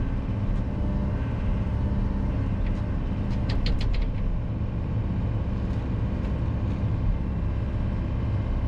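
Sany SY60 mini excavator's diesel engine and hydraulics running steadily under load as it digs, heard from inside the cab. About three and a half seconds in comes a quick cluster of sharp clicks.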